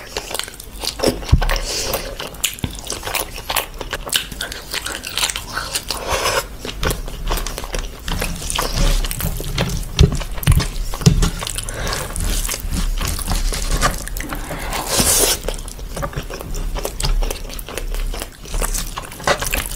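Wet, sticky eating sounds: chewing and smacking of rice with curry, with squelching as fingers mix rice into gravy and egg.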